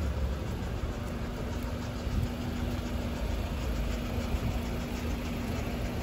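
Street noise with a vehicle engine running: a low, uneven rumble and a steady hum that stops about five and a half seconds in.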